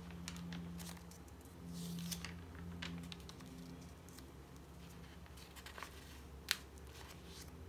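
Paper pages of a thick, paint- and collage-laden A5 journal being turned and handled, with soft rustles and small clicks of fingers on paper over a faint low hum. A single sharp tap about six and a half seconds in is the loudest sound.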